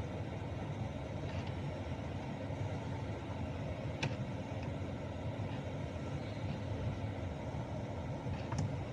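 Steady hum of the car's idling engine and AC blower inside the cabin, with a sharp click about four seconds in and a couple more near the end. There is no grinding from the AC direction-mode actuator: freshly lubricated, it moves the flaps smoothly and quietly.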